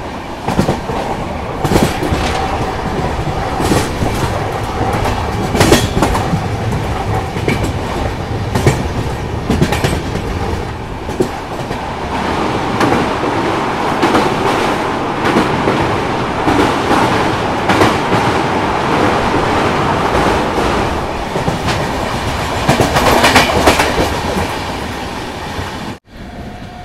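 Express passenger train running, its coach wheels clattering over the rail joints with a steady din and frequent sharp clacks.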